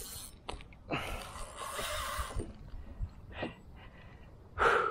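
Effortful breaths and snort-like exhalations from an angler straining against a hard-pulling jack crevalle on the rod. There is one long breathy exhale about a second in and a louder grunt near the end.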